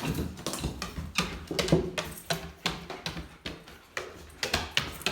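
Footsteps climbing a wooden staircase, irregular knocks about two to three a second.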